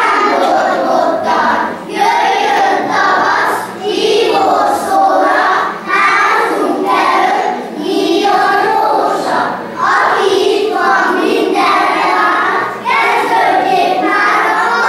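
A group of young children singing a song together, likely a ring-game song, in phrases of about two seconds with short breaks between them.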